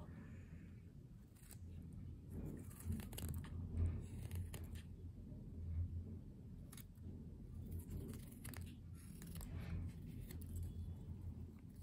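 Small whittling knife paring thin shavings from a wooden blank: a series of short, faint scraping cuts at irregular intervals.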